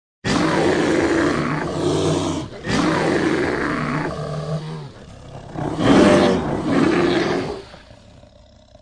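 Recorded roaring of a large wild animal: two long roars, then a louder one about six seconds in that trails off.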